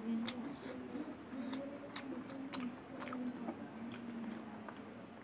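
Close-up chewing of pork and rice: wet mouth clicks and smacks repeating irregularly, with a faint low hum underneath.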